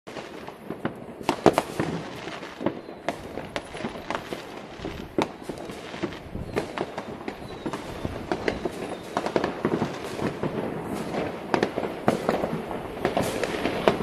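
Fireworks and firecrackers going off at many spots across a town at once: a dense, irregular stream of bangs and crackles, the loudest bang about a second and a half in.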